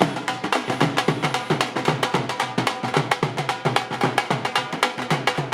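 Street music driven by fast, even drumming, with quick strikes several times a second and a steady pitched melody over the beat.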